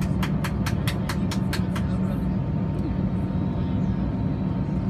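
Steady low hum of an Airbus A320's cabin, with a faint whine above it, as the aircraft moves slowly off the gate. For about the first two seconds a run of sharp ticks sounds over it, about four or five a second.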